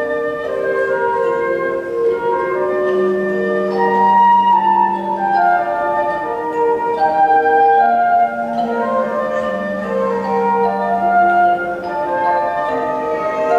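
Flute and tone chimes playing a slow piece together, several held notes sounding at once and changing every second or two.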